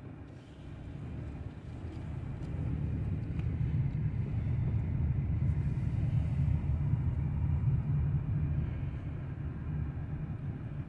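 Low vehicle rumble that builds over the first few seconds, then eases slightly near the end.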